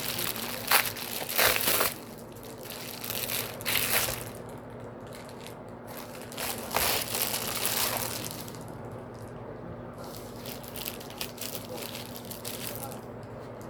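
Shipping packaging crinkling and crunching as hands grip and pull at it, trying to get it open. The handling comes in spells during the first half, then the sound falls back to a steady low hum.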